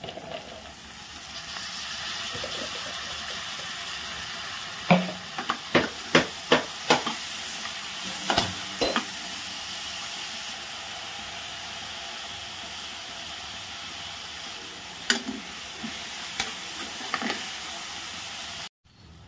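Onions, green chillies and flat beans sizzling in hot oil in an aluminium pot, the hiss swelling a second in as the beans are added. A steel ladle stirs and scrapes against the pot, with a quick run of sharp clinks about five seconds in and a few more knocks later.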